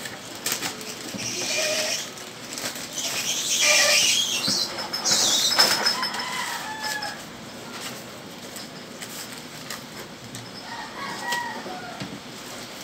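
Plastic courier pouch and cardboard packaging crinkling and tearing as a parcel is unwrapped, loudest in the first half and quieter after about seven seconds.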